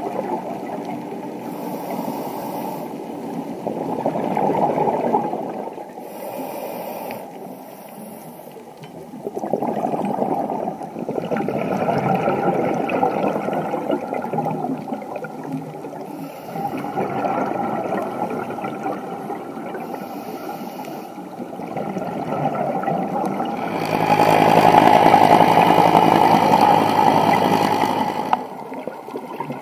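Scuba diver's regulator heard underwater: gurgling swells of exhaled bubbles every few seconds, the longest and loudest near the end.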